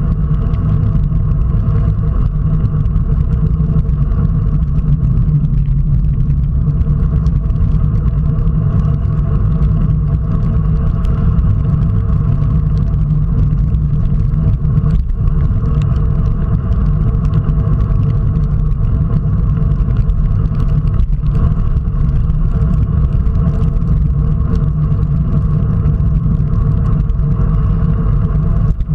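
Steady, loud rumble of wind buffeting a bike-mounted camera's microphone on a road bike riding at about 35 km/h, mixed with tyre noise on wet tarmac.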